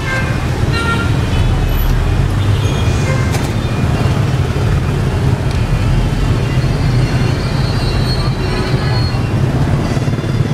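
Steady traffic noise from a stream of motorbikes and scooters passing on a busy city street: a continuous low rumble of many small engines.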